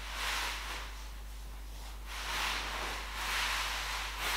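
Large watercolour brush swept over wet cold-pressed watercolour paper: four soft swishes, each under a second long, about a second apart.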